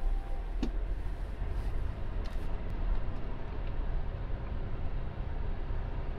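Car interior noise while driving slowly: a steady low rumble from the engine and tyres on a rough road, with a few faint clicks.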